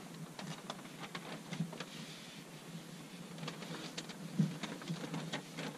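Waterproof membrane sheet crackling faintly and irregularly as it is handled and pressed onto the foundation wall, with a soft knock about four seconds in.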